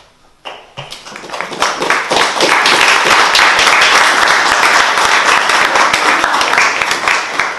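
Audience applauding: many hands clapping, starting about half a second in, growing to full strength within a couple of seconds, then beginning to fade near the end.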